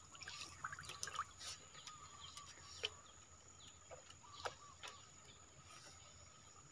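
Faint scattered drips and small splashes as small fish leap and flap in the shallow water on a raised lift net, with a few short falling chirps between about three and five seconds in.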